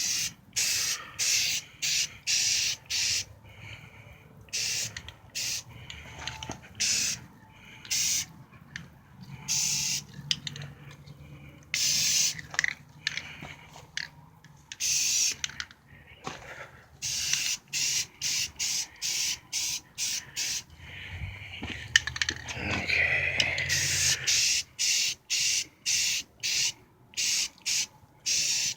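Aerosol can of self-etching primer spraying in many short bursts, each under a second, with brief pauses between them, as a coat of primer goes onto a brake caliper.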